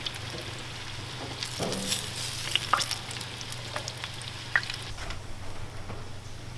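Oil sizzling as breaded turtle meat fries in a 12-inch cast iron pan, with a scatter of sharp clicks and crackles as the pieces are lifted out with metal tongs.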